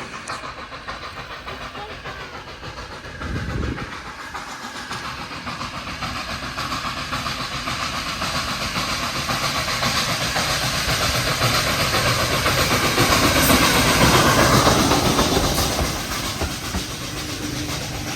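A train approaching and passing: the running noise grows louder to a peak about three-quarters of the way through, then drops away.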